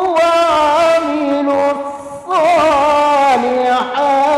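A man reciting the Qur'an in melodic tilawah style, drawing out long ornamented notes whose pitch wavers and glides. He breaks off briefly about two seconds in, then carries on.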